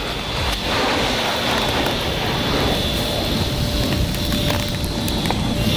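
Engine running steadily under load with a high whine, hauling on a cable and pulley block that tips a broken tree stump out of the ground.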